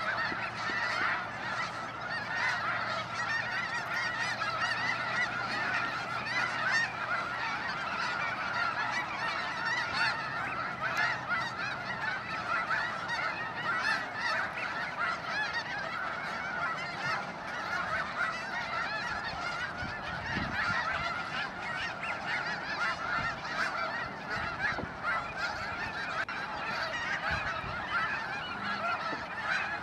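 A large flock of geese calling together: a continuous, dense chorus of overlapping honks that keeps on without a break.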